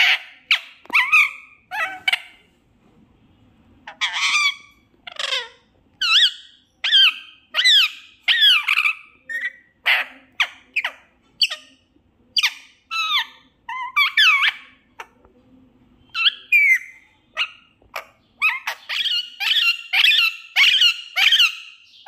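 Rose-ringed parakeet (Indian ringneck) calling in a string of short, high-pitched notes that slide in pitch, about one or two a second with brief pauses, quickening into a fast run near the end.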